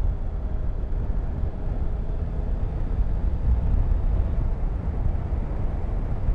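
Motorcycle engine running steadily while riding, with wind and road noise.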